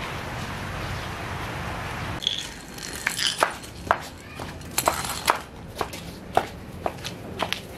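A steady hiss for about two seconds, then a run of light, sharp clicks and small clinks as a beagle puppy walks on a leash over tile and concrete.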